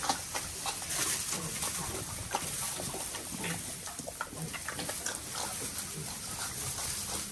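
Pigs eating bread, chewing with many short crunching clicks and giving the odd short grunt.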